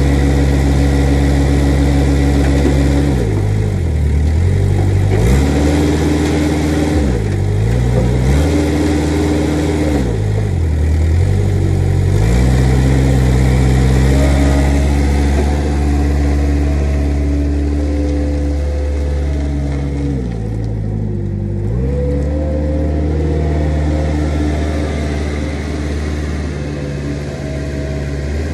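Engine of a Manitou truck-mounted forklift running close by, its speed dropping and picking back up several times as it works.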